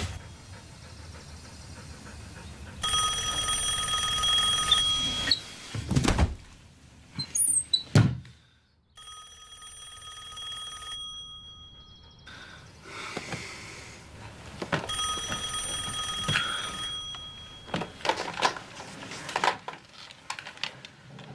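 Telephone ringing three times, each ring lasting about two seconds, with a few sharp thuds between the first and second rings and some clatter near the end.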